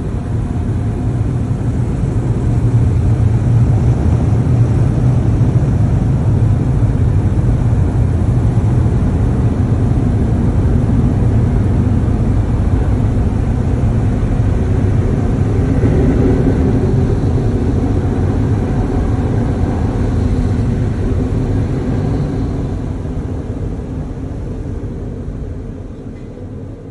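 An automatic car wash's air dryers blowing on the car, heard from inside the cabin. It is a loud, steady rush that fades over the last few seconds as the car pulls clear.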